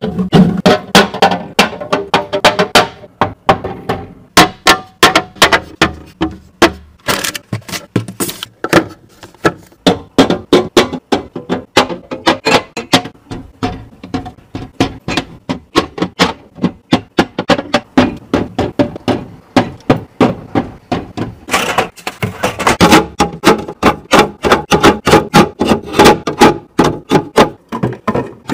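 Quick, sharp clacks and knocks of containers and items being handled and set down, a few every second, with music under them.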